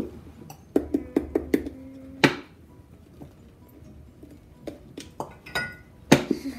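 Small plastic glue bottles squeezed and shaken over ceramic bowls, giving a series of sharp clacks and taps in two bursts, with a brief low squeak partway through. The bottles are nearly empty and the glue won't come out.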